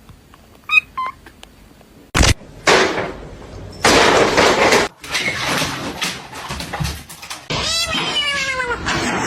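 Cat meowing: a couple of faint short mews about a second in, a sharp knock a little after two seconds, stretches of loud hiss-like noise, then a run of loud meows in the last second and a half.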